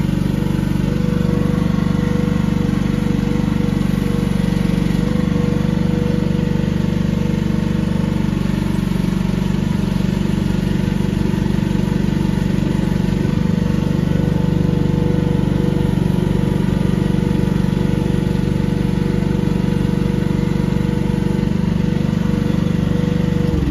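AGT H15 mini excavator's engine running steadily while the arm and bucket are worked hydraulically, with a steady whine over the engine note.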